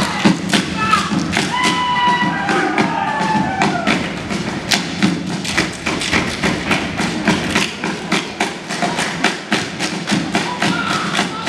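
Seated group dancers slapping their bodies and clapping in unison: a fast, even run of sharp slaps, several a second, with shouted calls from the performers in the first few seconds.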